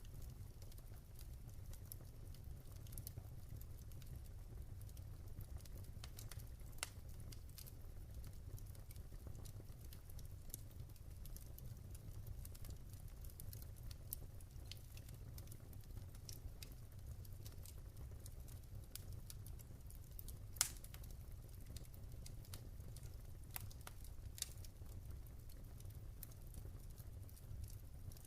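Wood fire crackling, with scattered sharp pops over a steady low rumble; the loudest pop comes about two-thirds of the way in.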